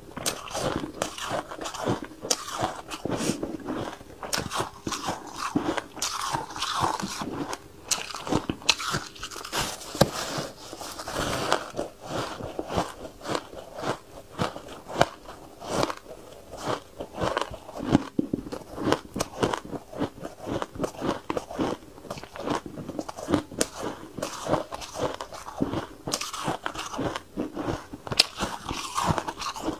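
Close-miked biting and chewing of crunchy white ice, a dense run of irregular crisp crunches.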